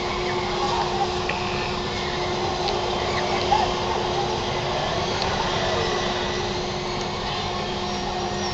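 Tornade amusement ride's machinery running with a steady mechanical hum and whir, with a few faint clicks.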